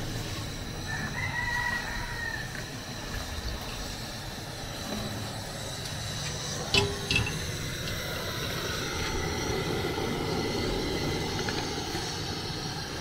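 A rooster crows once about a second in. Near seven seconds an aluminium pot clanks twice, then liquid is poured from one aluminium pot into a large aluminium cooking pot for a few seconds.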